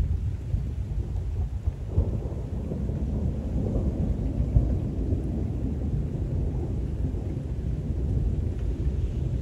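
A long roll of thunder rumbling low and continuously, swelling about two seconds in, with rain falling.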